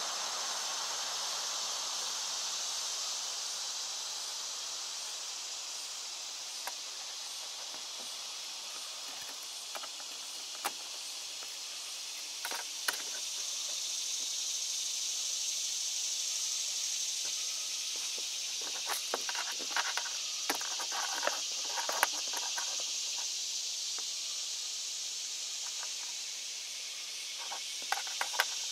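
Scattered light clicks and taps of a tape measure and marker being handled against a plastic boat hull, over a steady high-pitched hiss that slowly swells and eases.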